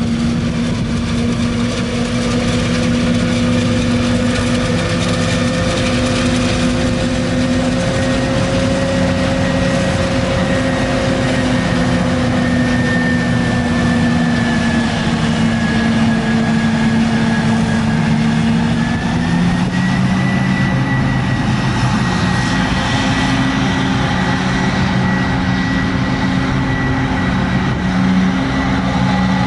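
Forage harvester and tractor engines running steadily while chopping maize, with engine tones drifting slightly in pitch and a thin high whine held throughout.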